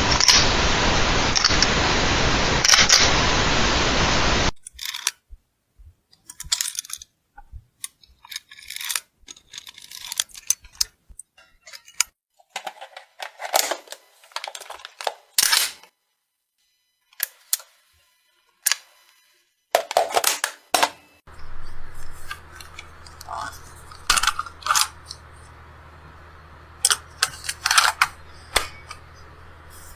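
Gun reloading sound effects: short, sharp metallic clicks and clacks of a firearm's action being worked, in separate groups with pauses between them. The first few seconds are a dense hiss-like noise, and over the last third a steady low hum sits under the clicks.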